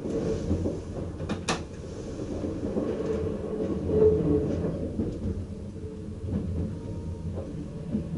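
Cab of a VIRM double-decker electric train running over switches: a steady low rumble of wheels on rail, with two sharp knocks in quick succession about a second and a half in.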